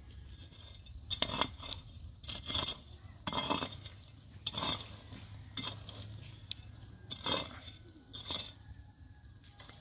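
A long-handled metal scoop raked through hot charcoal embers and ash, scraping and clinking against the coals in a series of strokes about a second apart.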